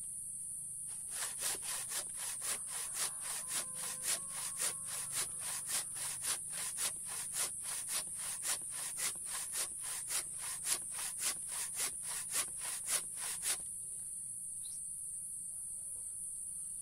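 Hand saw cutting through very hard mangosteen wood in steady back-and-forth strokes, about two a second. The strokes begin about a second in and stop a few seconds before the end.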